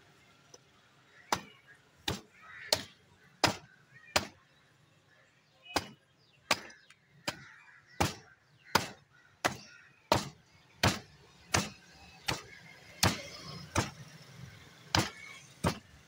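Heavy butcher's cleaver chopping into a buffalo head resting on a wooden stump block. The sharp chops come about one every three quarters of a second, with a short pause about four seconds in.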